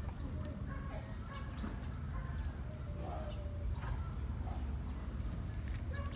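Outdoor ambience: a steady low rumble and a steady high hiss, with scattered faint short calls.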